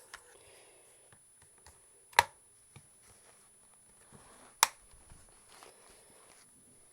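Two sharp plastic snaps, about two and a half seconds apart, with faint handling clicks between: the Asus Eee PC 1000HE's bottom RAM cover panel being clipped back into place.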